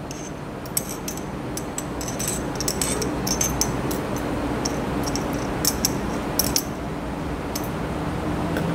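Glassware clinking: a glass boiling tube and forceps tapping lightly on a glass beaker, many short high clicks scattered through, over a steady hiss and hum of room noise.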